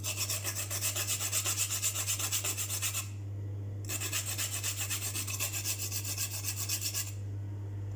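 Whole nutmeg being grated on a handheld stainless-steel rasp grater: quick, even back-and-forth rasping strokes in two runs, broken by a short pause about three seconds in, over a steady low hum.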